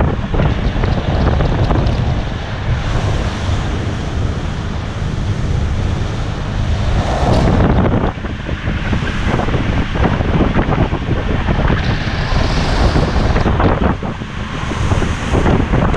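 Wind buffeting the microphone and water rushing past the hull of a 21 ft center-console boat running at speed, with the low steady drone of its 150 outboard underneath and scattered knocks as the hull meets the chop.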